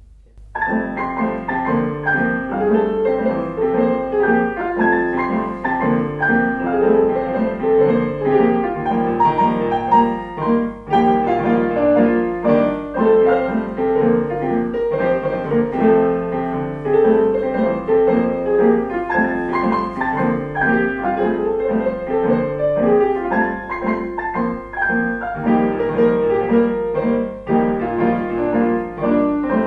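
Piano music played by a keyboard ensemble, with many notes sounding together; it begins about half a second in.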